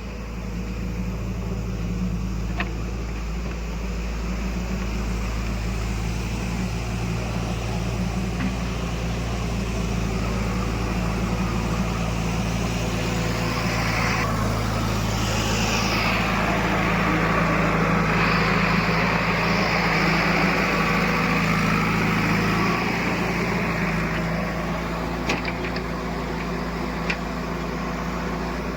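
Heavy diesel machinery running steadily. About halfway through it grows louder under load, with a higher whining noise over it for roughly ten seconds, then settles back. A few sharp clicks come near the end.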